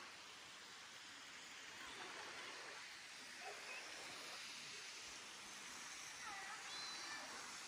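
Steady hiss of falling and flowing water from a desert canyon waterfall and its stream, faint and even.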